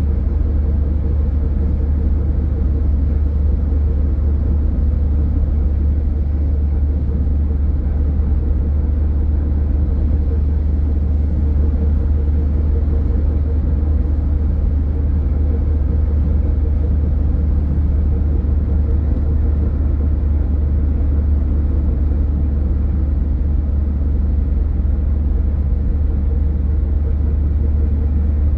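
A car driving at a steady speed: a constant low rumble of tyre, road and engine noise that does not change.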